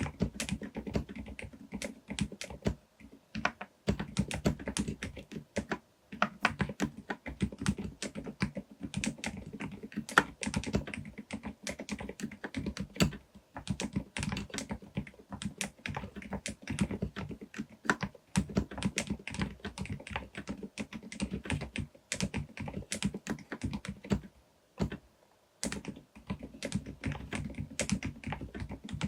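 Typing on a Groovestone GV10M-8K mechanical keyboard fitted with silent Milky S 38 g switches: rapid, continuous keystrokes, with short pauses about four, six and twenty-five seconds in.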